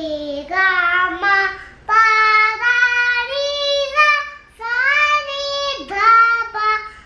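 A young child singing the Indian sargam scale, 'sa ri ga ma pa dha ni sa', one held syllable per note, stepping up in pitch and then coming back down near the end.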